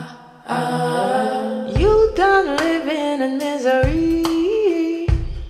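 A recorded song played back through hi-fi loudspeakers and picked up by a stereo microphone: a voice sings a wordless line of held, sliding notes, with a bass drum striking three times.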